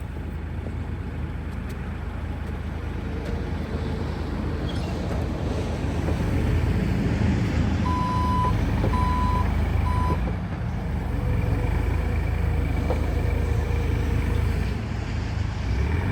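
Bobcat E50 R2 compact excavator's diesel engine running, rising in loudness over the first several seconds as it is put to work, then holding steady. Three short electronic beeps of one pitch sound about eight seconds in.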